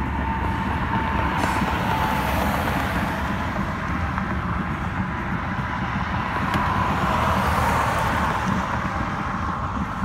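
Coal hopper cars of a long Union Pacific freight train rolling steadily past, a continuous noise of wheels on the rails.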